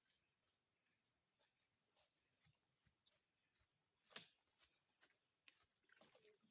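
Faint, steady high-pitched chorus of insects chirring, with a few soft clicks and one sharper click about four seconds in.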